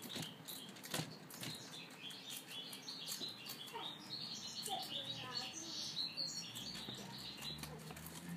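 Mini lop rabbit chewing fresh anise fronds: a quick, irregular run of crisp crunching clicks from its teeth.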